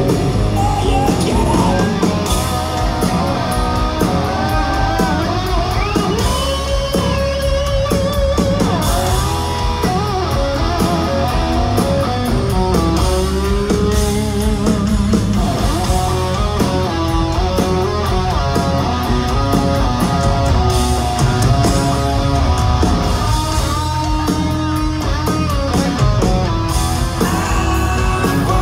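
Live heavy rock band playing loudly: distorted electric guitar lead with bent, wavering notes over bass and drums, with little or no singing.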